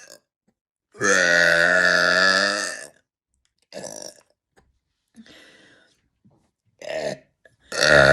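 A woman burping repeatedly: a long, loud belch lasting about two seconds, then a few short and fainter burps, and another long, loud one starting near the end.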